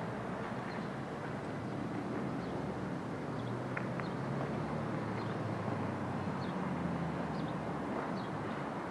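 Steady outdoor background noise with a low rumble, like distant traffic, and faint short high chirps every second or so.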